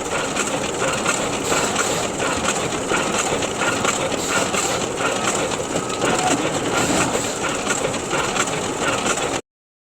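Photocopier running: a steady mechanical whir with a repeated clatter of clicks, cutting off suddenly near the end.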